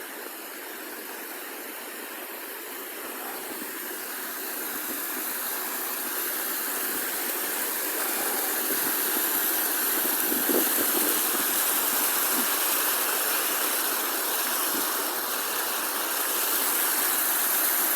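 Steady rushing hiss of falling water from a waterfall, growing louder through the first half and then holding steady.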